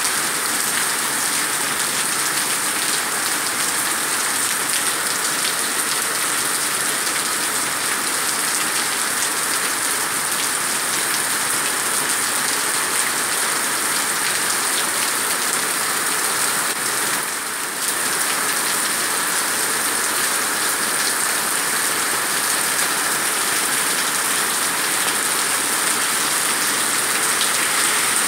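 Steady rain falling on stone paving and the street, a continuous even hiss of drops.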